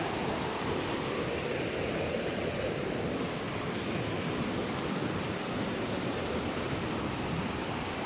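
Fast, muddy river rushing over rocks in a steady, unbroken stream of water noise.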